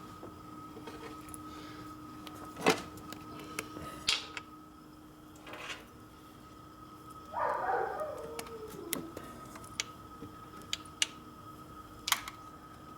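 Scattered clicks and knocks of hand tools and parts being handled at a motorcycle workbench, the loudest about three seconds in, with a brief muffled sound around the middle.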